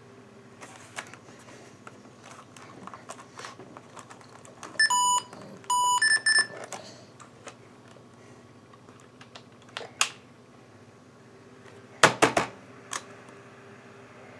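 IBM ThinkPad 600E laptop being worked at its boot screen: scattered clicks and taps, and two short electronic beeps from the laptop about five seconds in, a second apart. A loud cluster of knocks comes about twelve seconds in, all over a steady low hum.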